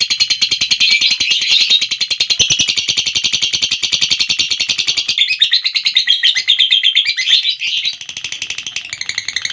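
Lovebird giving its long 'ngekek' chatter: an unbroken run of very fast, high, shrill notes, the pattern shifting about five seconds in. This sustained chatter is the long ngekek that keepers prize and play to other lovebirds to set them off.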